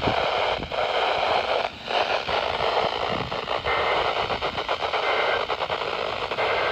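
Radio static: a steady hiss with crackle and brief dropouts from a weak weather radio signal, drowning out the broadcast voice.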